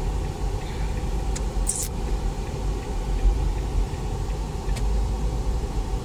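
Steady rumble of engine and road noise inside the cabin of a 2022 Chevrolet Captiva driving in city traffic. A brief high hiss comes a little under two seconds in, and there are a couple of faint clicks.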